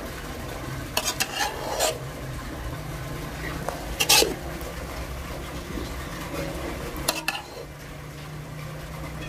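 Metal spoon scraping and clinking against a pot of freshly cooked chicken biryani as it is stirred or dished out, in three short bouts a few seconds apart.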